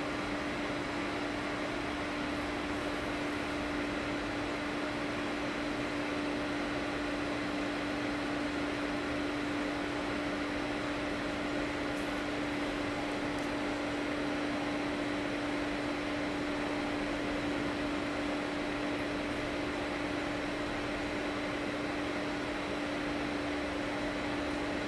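Steady machine hum: one constant low tone over an even hiss, unchanging throughout.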